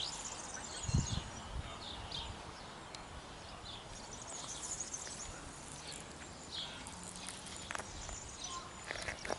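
Faint outdoor ambience, with scattered short high chirps and a low thump about a second in.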